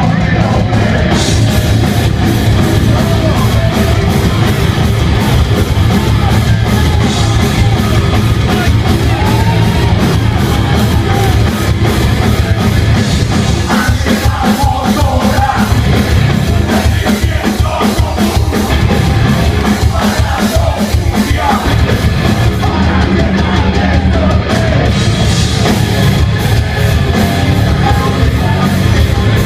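Heavy metal band playing live at full volume: distorted guitars, bass and a pounding drum kit, with the singer shouting the vocals over them.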